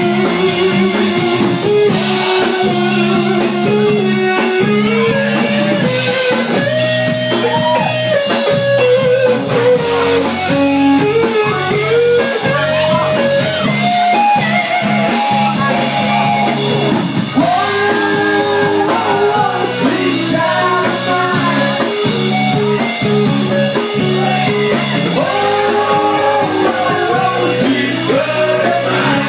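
A rock song with guitar and a singing voice, playing loud and continuous.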